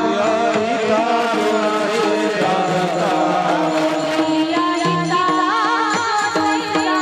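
Devotional kirtan music: a voice sings a long ornamented melody with wavering pitch glides, over steady held accompanying tones and regular hand-drum strokes.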